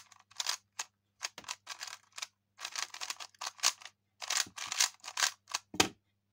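A non-magnetic QiYi Black Mamba V3 3x3 speed cube being turned quickly by hand: plastic layers clacking and scraping in short bursts of turns. Near the end there is a louder knock as the cube is set down on a wooden desk.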